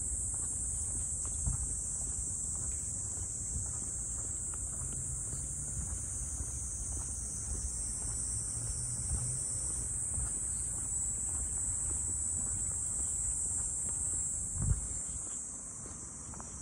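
Steady high-pitched chorus of insects over a low rumble, with a single thump about fifteen seconds in.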